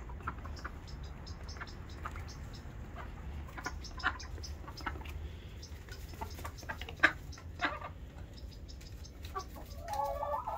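Domestic hens clucking softly in short calls while feeding, with a longer, wavering hen call near the end.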